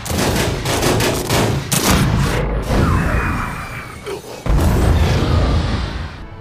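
Anime fight sound effects: a rapid flurry of sharp strikes and clashes over the first two seconds or so. A heavy boom comes in suddenly about four and a half seconds in and rumbles on before fading, with music underneath.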